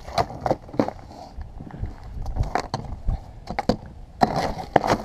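A hammer knocking ice off an AR-15 rifle: a string of sharp knocks and cracks of breaking ice at an uneven pace, thickest about four seconds in. The audio is played back sped up.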